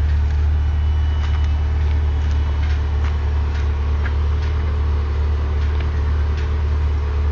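Convertible car's engine idling steadily, with a loud low hum, while its soft-top mechanism folds the roof back. Light clicks from the mechanism come every half second or so, and a faint whine joins about two seconds in.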